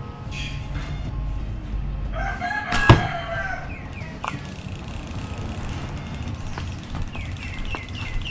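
A rooster crows once, about two seconds in, with a sharp knock near the end of the crow. Short high bird chirps follow near the end.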